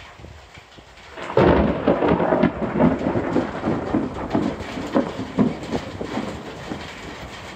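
A close thunderclap about a second in: a sudden loud crack that breaks into a long crackling rumble, slowly fading, over a steady hiss of rain.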